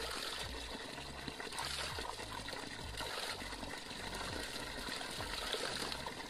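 Stream water pouring steadily from a split-bamboo pipe spout and splashing against a man's mouth as he drinks from it.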